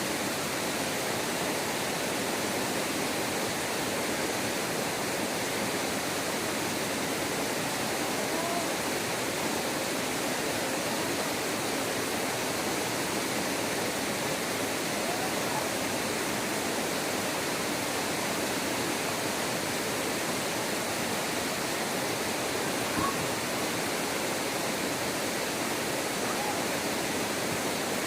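Waterfall, with water falling and rushing in a steady, unbroken hiss that does not let up.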